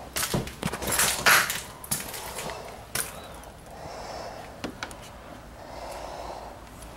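Knocks and scrapes of an old wooden door and its frame being handled, a quick flurry in the first two seconds, loudest about a second in, followed by a few single clicks.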